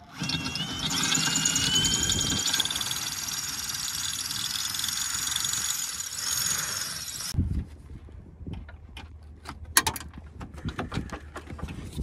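Ridgid cordless drill boring out a rivet, its motor whine rising in pitch as it spins up and the bit grinding through the metal, running about seven seconds before stopping abruptly. A series of sharp clicks and knocks follows as the drilled-out parts are handled.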